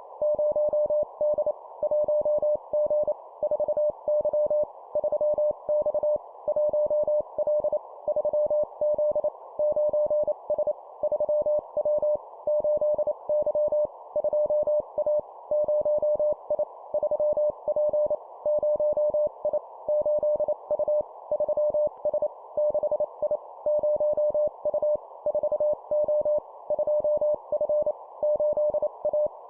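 Morse code (CW) practice tone sent at 25 words per minute: a single pure tone keyed on and off in dots and dashes, in short groups with brief pauses between them.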